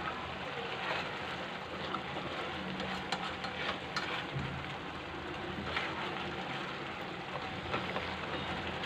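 Sweet tomato chutney sizzling and bubbling in an open nonstick frying pan, a steady hiss with a few faint clicks. Near the end a plastic spatula stirs it in the pan.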